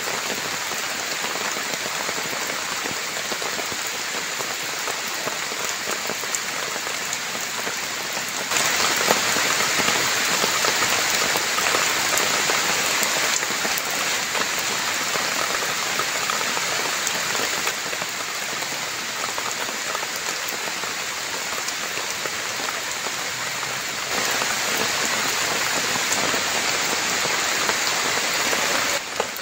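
Heavy rain falling steadily as an even hiss of drops. It grows louder for a few seconds about a third of the way in and again near the end.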